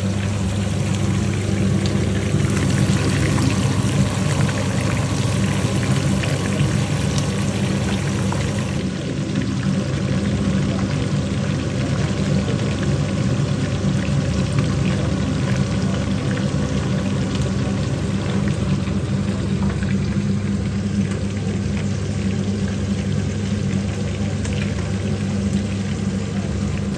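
Butterflied fish deep-frying in a pan of hot oil: a dense, steady sizzle of fine crackles, with a steady low hum underneath.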